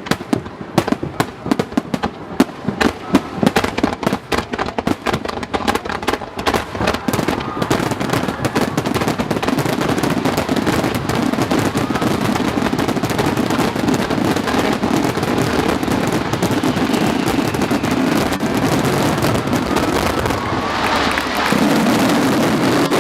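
Fireworks display: rapid shell bursts and crackles, thickening after several seconds into a continuous dense barrage. Near the end a crowd begins cheering.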